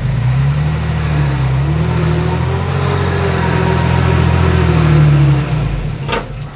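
Heavy construction machine's diesel engine running under load close by, louder and steady for about five seconds, then dying away near the end. A single sharp knock comes just before it ends.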